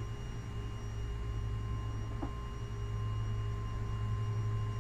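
Motorized ceiling TV lift running as it lowers a TV: a steady low motor hum with faint steady whining tones above it.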